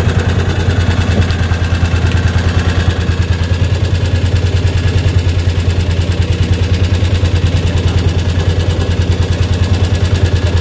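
Small fishing boat's engine running steadily under way, a low hum with an even, rapid pulsing beat.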